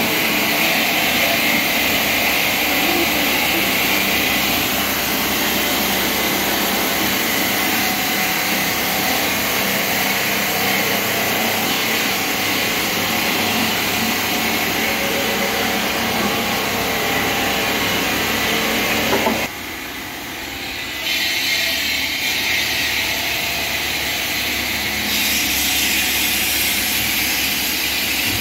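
Marble-processing machinery running steadily: a constant loud hiss over a low hum from the stone-cutting line. The sound dips sharply for about a second and a half about two-thirds of the way through, then comes back.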